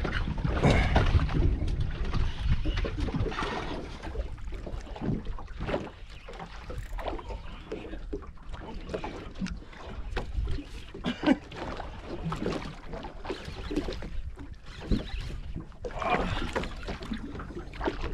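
Wind and water noise aboard a small fishing boat: an uneven low rumble of wind on the microphone with water splashing against the hull, louder in the first few seconds.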